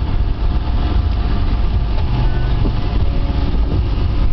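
Motorboat engine running steadily while towing a parasail, under a constant low rumble of wind noise on the microphone.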